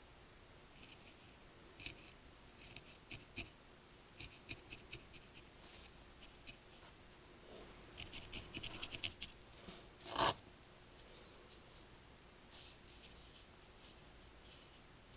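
Felting needle stabbing repeatedly through wool roving into a foam pad: soft, scratchy ticks in quick runs, several a second. About ten seconds in there is one louder knock.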